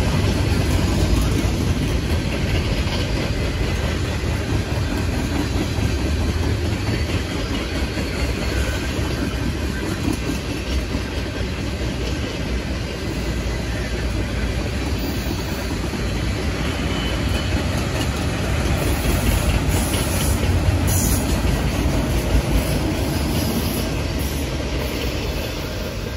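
Freight train cars rolling past: a steady rumble of steel wheels on rail.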